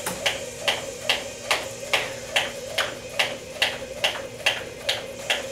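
Jump rope skipping at a steady pace: a sharp tick on each turn as the rope strikes the floor, about two and a half times a second.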